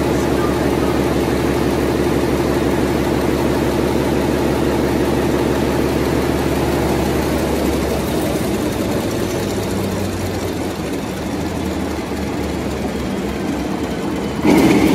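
Large air-started twin-turbo diesel engine running off load, a steady heavy hum with dense rapid firing pulses. About halfway through its sound turns rougher and a little quieter, and near the end a sudden louder rush of noise comes in.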